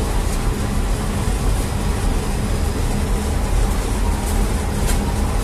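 Steady drone of a commercial bakery's gas-fired rotating-hearth bread oven running, a low hum with a faint steady whine above it and a few light clicks.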